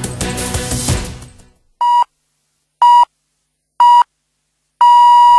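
Music fades out, then radio time-signal pips sound: three short beeps a second apart and a longer fourth beep of the same pitch.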